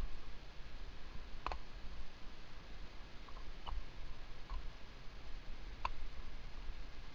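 Mountain bike rolling along a dirt singletrack: a steady low rumble with a handful of sharp, separate clicks and rattles from the bike, the clearest about a second and a half in and just before six seconds.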